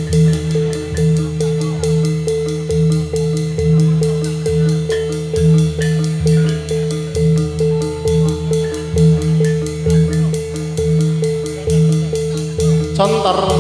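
Jathilan dance music: a percussion-led ensemble playing a steady, quick repeating beat with fast ticking strokes on top over a held low drone.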